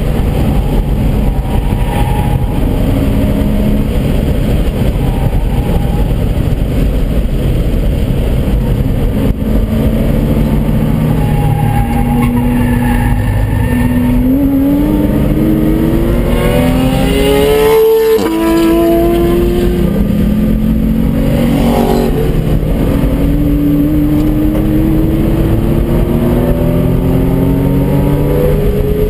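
2001 Porsche Boxster S's 3.2-litre flat-six engine under hard acceleration on track, heard from inside the car: the pitch climbs with the revs, drops at a gear change about two-thirds of the way through, then climbs again. Steady wind and road noise underneath.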